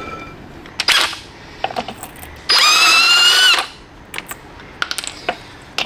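Cordless impact wrench spinning in one burst of about a second, a steady whine that rises slightly, with scattered clicks and knocks before and after it.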